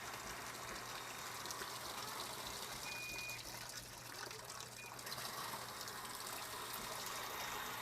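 Water running in a steady gush, with a short faint tone about three seconds in.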